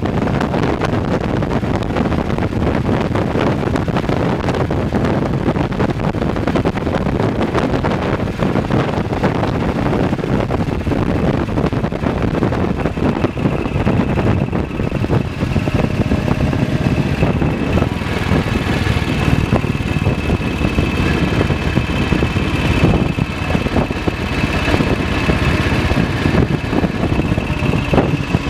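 BSA WM20's single-cylinder side-valve engine running steadily as the motorcycle rides along a wet road. About halfway through, a steady high whine joins in.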